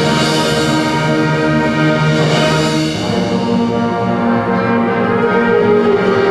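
High school concert band playing slow, sustained chords, moving to a new chord about three seconds in.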